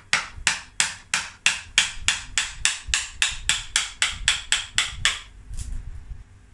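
Mallet striking a carving gouge into the dead wood of an elm bonsai trunk, hollowing it out: a steady run of sharp knocks, about three a second, that stops about five seconds in, followed by two light taps.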